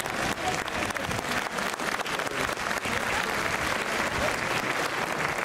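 Spectators applauding: many hands clapping at once, with scattered voices among them.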